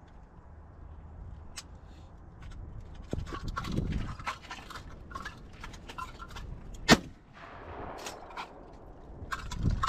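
A single shotgun shot about seven seconds in, followed by a brief echo. Smaller clicks and knocks of the gun being handled come before and after it, over low wind rumble.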